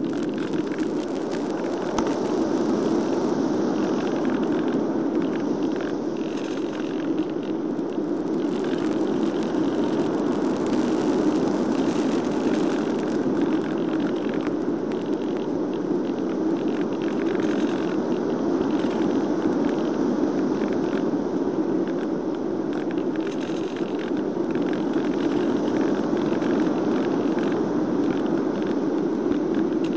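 Steady wind rushing over a gliding FPV plane's onboard microphone, its motor off, with faint radio crackle from the video link now and then.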